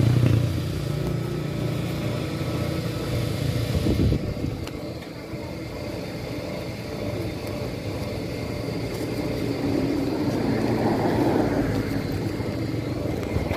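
Motorcycle engine idling steadily, a little louder for the first few seconds.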